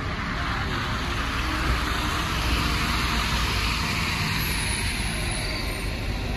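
City street traffic noise: a steady wash of road and engine noise, with a hiss that swells through the middle, over a constant low rumble.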